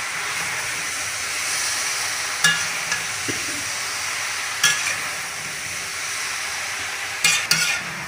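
Food sizzling in a metal kadai while a metal spatula stirs raw chicken pieces into the vegetables. The spatula clinks sharply against the pan a few times, with two clinks close together near the end.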